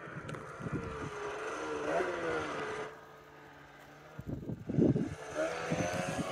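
Snowmobile engine revving as the sled climbs through deep powder, its pitch rising and falling. It drops away briefly about three seconds in, then comes back louder, with rough bursts.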